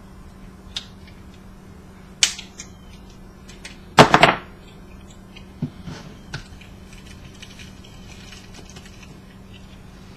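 Sharp clicks and snaps of small plastic clips being broken off a copper coil with diagonal cutters, then a louder clatter about four seconds in and a few lighter knocks on a workbench.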